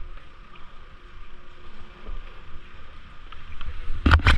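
Wind buffeting the microphone of a camera carried down a ski slope, a steady low rumble, with a quick cluster of loud knocks near the end.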